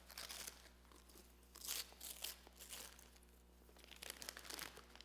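Wrapping paper being torn and crumpled off a gift box by hand, in several faint bursts of rustling.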